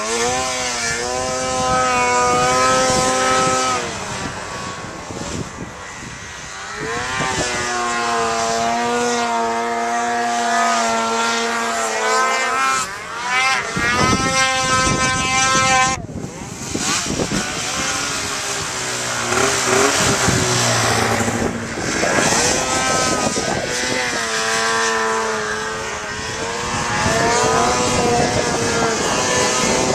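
Snowmobile engine running and revving as the sled climbs and carves through deep powder, its pitch holding steady for a few seconds at a time, then rising and falling. The sound breaks off sharply for an instant about halfway through.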